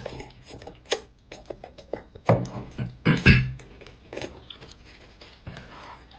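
Crunchy snack being bitten and chewed close by: a run of crisp crunches and clicks, with two louder, fuller crunches a little after two and three seconds in.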